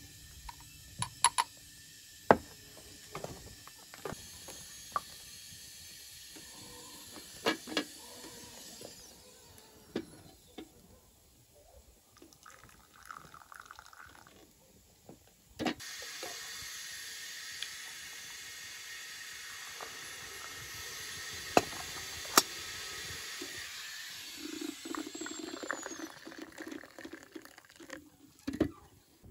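Light taps and knocks of a small wooden mortar and glass, then hot water poured from a kettle into a tea glass: a steady splashing pour lasting several seconds, with a few sharp clinks.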